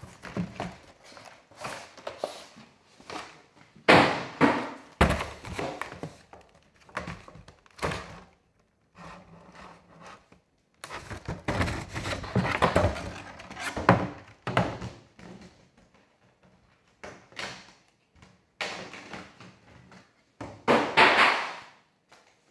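A cardboard collector's box being opened and its clear plastic insert tray lifted out and set down: irregular thunks, knocks and scraping of cardboard and plastic, with short pauses between.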